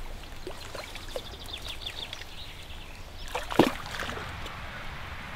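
A hooked carp splashing at the surface close to the bank, with one loud splash about three and a half seconds in. A bird twitters a quick run of high notes in the background.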